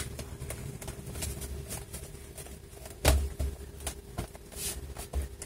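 Hands pressing and rubbing around the plastic bottom case of a Lenovo Ideapad 330-17IKB laptop to snap its clips back in: faint taps and rubs, with one sharp click about three seconds in.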